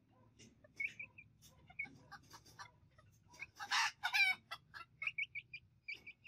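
Bantam chickens calling: short high chirps and clucks throughout, and one loud, harsh call lasting about a second, about three and a half seconds in.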